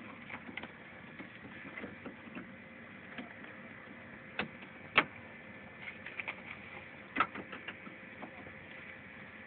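Scattered clicks and clunks of hands working a 1997 Ford Explorer's rear door latch and lock mechanism, with a sharp click about five seconds in and another near seven seconds.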